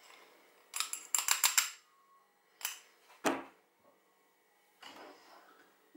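Small metal mesh strainer of chopped onion clinking and scraping against a bowl as the onion is pressed to squeeze out the water: a quick run of clicks about a second in, then two single knocks, the second the loudest, near the middle.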